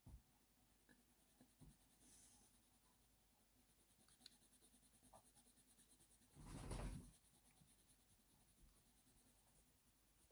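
Very faint scratching of a Faber-Castell Polychromos coloured pencil making short strokes on hot-press watercolour paper, with one brief, louder rustle about six and a half seconds in.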